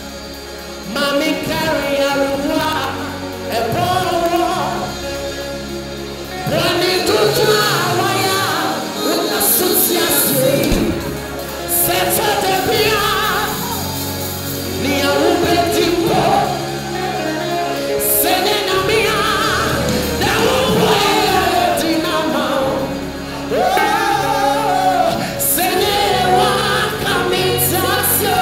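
Gospel song performed live: a male lead singer sings into a microphone, with choir voices and instrumental backing with a steady bass line.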